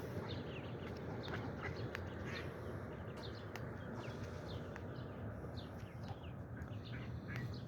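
Birds chirping: many short, high calls, some sweeping downward in pitch, scattered throughout over a steady low background noise.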